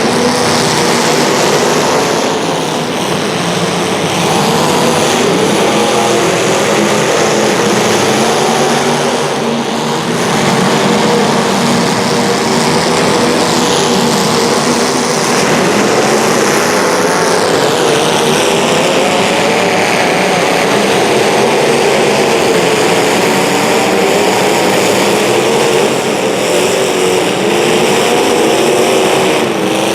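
Several small, high-revving racing engines running together in a heat, their pitch rising and falling continuously as they accelerate and brake.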